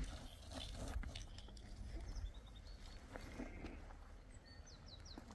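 Ropes being handled and tied: faint rustles and light knocks over a low steady rumble, with a few short high chirps about four and a half seconds in.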